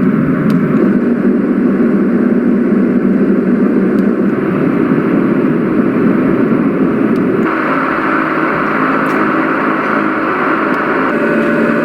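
Roffie white noise machine playing its white-noise sounds through its speaker as steady, loud noise. About seven and a half seconds in it switches abruptly from a low, rumbling noise to a higher hiss, and it shifts again slightly near the end as the next sound is selected.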